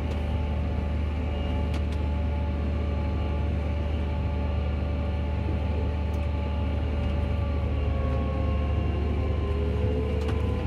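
Tractor engine running steadily, heard inside the cab as a low drone. Faint whining tones above it slide slightly lower near the end.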